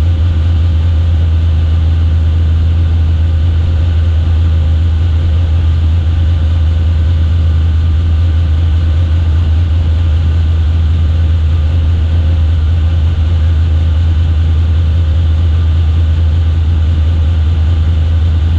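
A steady, low mechanical drone that holds one pitch without rising or falling.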